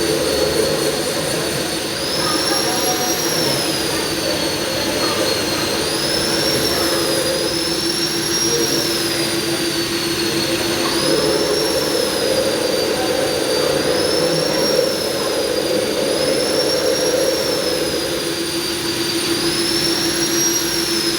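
Milling machine running: a steady hum under a high whine that rises and falls every three to four seconds.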